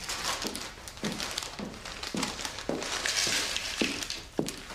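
Footsteps on a hard floor at a steady walking pace, about two a second, over the crinkle of a plastic bag being handled.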